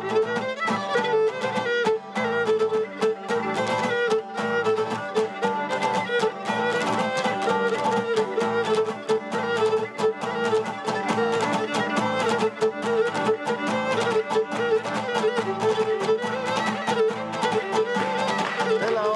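Instrumental Cretan folk dance music played live: a Cretan lyra plays a quick bowed melody over a laouto strummed in a steady rhythm.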